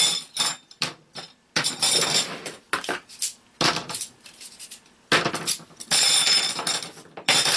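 Metal cot-frame poles clinking and rattling against each other as they are gathered into a bundle. The sound comes in repeated bursts with a ringing metallic tone.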